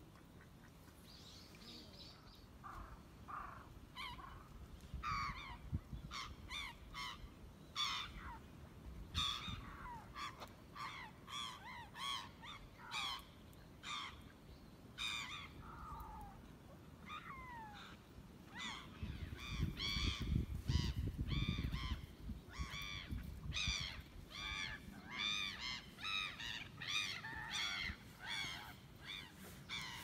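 Many birds calling over and over, short harsh pitched calls overlapping in quick succession and getting denser in the second half. A low rumble swells briefly about two-thirds of the way through.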